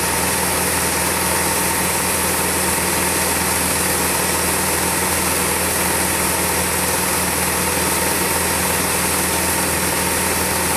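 Steady mechanical whir of a film projector running as old home-movie footage plays, with an even hum and hiss and no changes.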